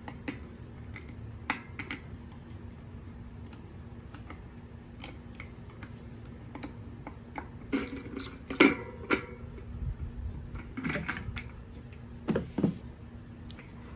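Irregular clicks and metallic clinks of small metal parts being handled, with a louder cluster about eight to nine seconds in and more near eleven and twelve seconds, over a faint steady hum.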